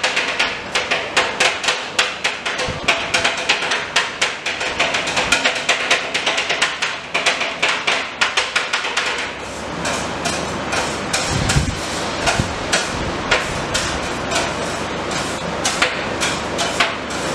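Two metal spatulas chopping rapidly on the frozen stainless-steel plate of a fried ice cream (tawa ice cream) machine, crushing dry fruit into the ice cream mix: a fast run of sharp metal taps, several a second. About ten seconds in, the taps thin out.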